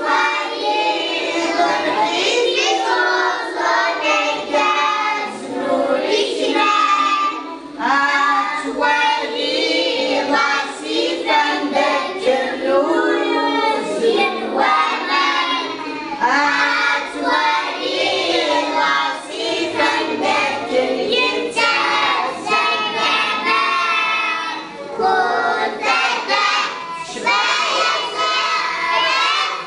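A group of young children singing together in chorus, phrase after phrase with short gaps between.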